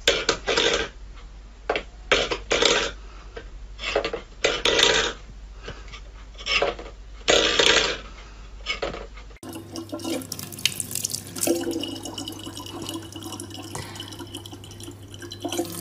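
Stainless steel pet bowl clattering on a wooden floor in a string of irregular knocks and scrapes as a cat paws at it. After about nine seconds this gives way to a tap running in a steady thin stream into a plastic water bottle.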